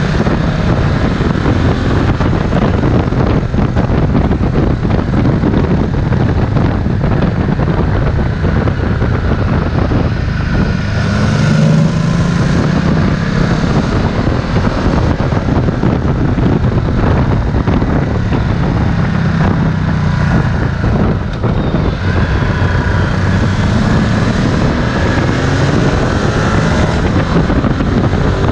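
Ducati Multistrada 1260 S V-twin engine running under way, its revs rising and falling through the bends, with wind rushing over the microphone.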